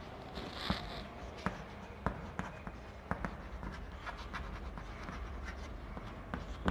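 Chalk writing on a chalkboard: a string of small, irregular taps and faint scrapes as letters are drawn.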